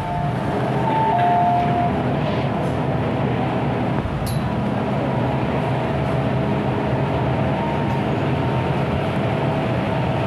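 MTR M-Train electric multiple unit running along the line: a steady rumble of wheels and running gear, with thin whining tones from the traction equipment that step up in pitch about a second in.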